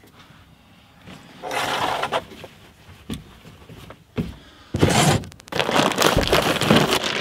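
Fabric curtains being pulled shut across a van's side windows: cloth rustling and sliding in short spells, a knock about four seconds in, then louder close-up rustling and handling noise for the last couple of seconds.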